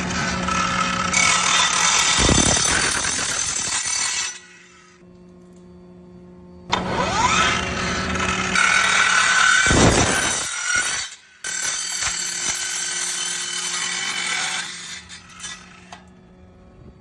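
Dekton 21V cordless brushless miter saw with a carbide blade, spinning up with a rising whine and cutting through stock. It stops about four seconds in, starts and cuts again near the middle, breaks off for a moment around eleven seconds, then runs once more until near the end.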